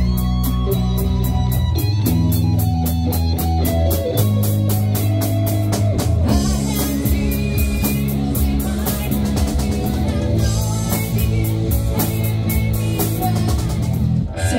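Live rock band playing electric guitar over bass and drum kit, with a steady cymbal beat. Shortly before the end the music breaks off and changes abruptly, an edit into another song.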